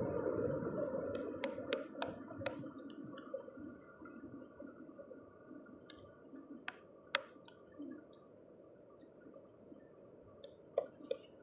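Sharp clicks of a hand-held stone knocking on a shell-crusted rock to break open rock oysters (sisi): about five knocks in the first two and a half seconds, two more a few seconds later and two near the end. A low rustling noise fades out over the first few seconds.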